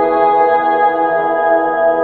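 Ambient meditation music of sustained, ringing tones like a singing bowl, held steady without a beat.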